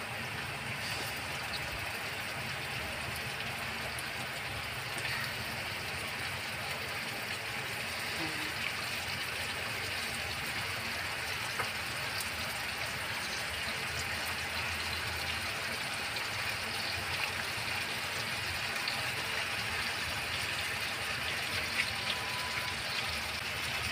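Steady sizzle of raw chicken pieces frying in oil with sautéed garlic and onion in a wok over a low flame, with a few faint clicks.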